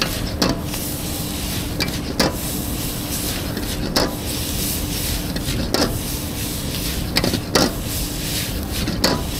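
Metal spatula clacking and scraping against a wok as noodles are stir-fried, a sharp clack every one to two seconds, over a steady rushing background.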